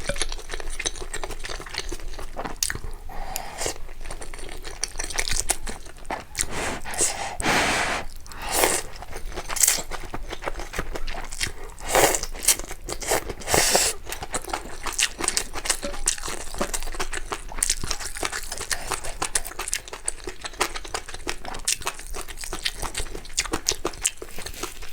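A person eating close to the microphone: chewing and crunching with many small wet mouth clicks, and a few louder short noisy bursts spread through the first half.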